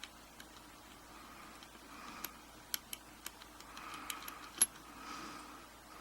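Scattered light metallic clicks and ticks of a Schlage lock cylinder and small tools being handled while its retaining ring is worked off the back, busiest in the middle and with one sharper click a little before the end.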